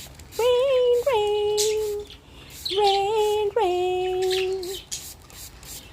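A woman's voice singing a wordless tune in two short phrases of held notes, each phrase stepping down in pitch.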